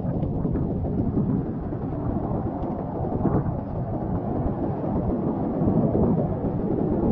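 Wind buffeting the microphone, a continuous low churning rumble, with a few faint clicks over it.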